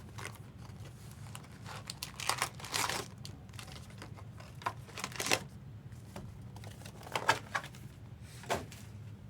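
Wrapping on trading-card packaging crinkling and tearing as it is opened, in several short bursts, the longest about two to three seconds in.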